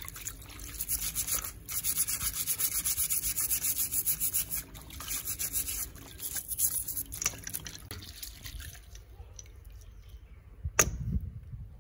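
Scouring sponge scrubbed rapidly back and forth over greasy metal engine parts in a tub of dirty cleaning liquid, several wet strokes a second. The scrubbing eases off after about eight seconds, and a single sharp knock comes near the end.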